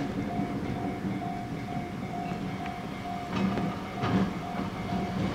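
Chichibu Railway Deki 500-class electric locomotive rolling slowly at low speed, its running gear humming with a clatter of wheels over rail joints about three to four seconds in. Behind it a warning bell rings steadily, about twice a second.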